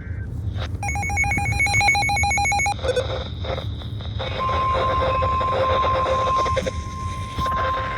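Emergency alert header: about a second in, a two-second burst of rapid, buzzy digital data tones (the SAME header code). From about four seconds in, a steady single-pitch alarm tone near 1 kHz follows, typical of the NOAA Weather Radio warning alarm that comes before a severe thunderstorm warning. Both play over a constant low hum and hiss.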